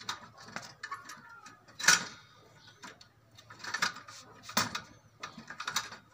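Bicycle rear wheel turned by hand: metal clicks and rattles from the hub and a newly fitted drive sprocket, with a sharp knock about two seconds in.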